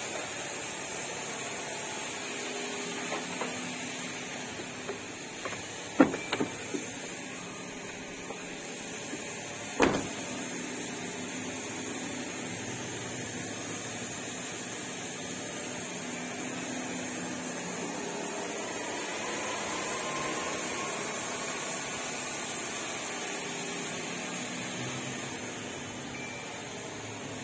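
Suzuki Every DA64V van's 660 cc turbocharged three-cylinder engine idling steadily. A few short knocks come around six seconds in and another at about ten seconds.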